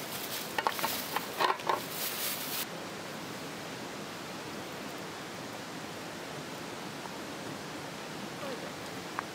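Plastic bag rustling and a small metal tin being handled, with several sharp clicks and clinks over the first couple of seconds, then only a steady background hiss. A single faint click near the end.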